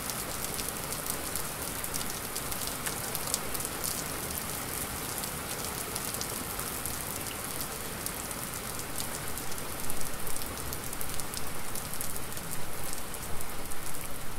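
Rain falling hard: a steady hiss dense with small drop hits. It grows louder and more uneven from about ten seconds in.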